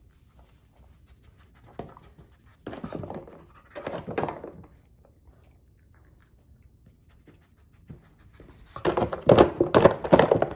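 Nova Scotia Duck Tolling Retriever panting and sniffing while nosing and pushing a taped-shut cardboard tissue box with treats inside, with short bursts of cardboard knocking and rustling. The loudest burst, a quick run of knocks and rustles, comes about nine seconds in, as the box is tipped up.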